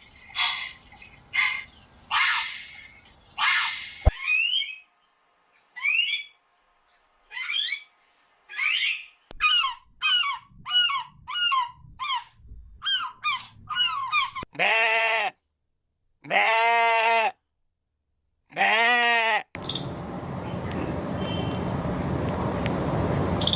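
A string of farm animal calls cut one after another: short, sharp honking calls, then a quick series of shorter calls about two a second, then three long wavering calls, before a steady hiss of background noise takes over for the last few seconds.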